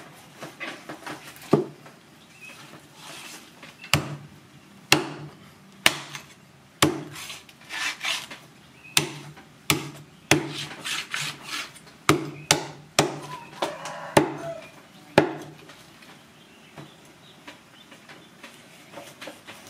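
Large knife chopping through a slab of skin-on wild boar pork into a wooden chopping board: sharp knocks roughly once a second, with scraping between strokes, then only light taps after about 16 seconds.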